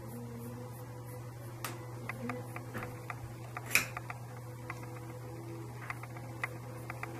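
Small objects being handled: scattered light clicks and taps, with one sharper click a little under four seconds in, over a steady low hum.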